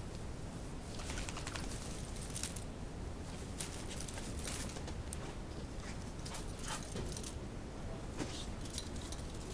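Two pit bulls playing rough: a scatter of short scuffles, paw steps and claw clicks, starting about a second in, over a steady low rumble.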